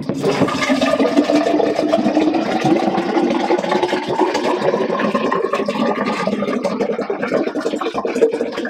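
Ion water sports drink pouring steadily from an upturned plastic bottle into a tall glass, a continuous splashing stream whose faint tone rises slowly as the glass fills.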